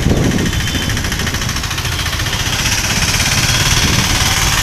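A small engine running close by with a steady, rapid throb while moving slowly through street traffic.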